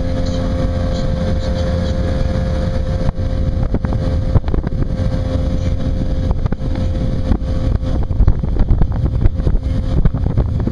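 Motorboat engine running steadily under way, a constant drone with a low rumble. From about three seconds in it is joined by irregular knocks and thumps.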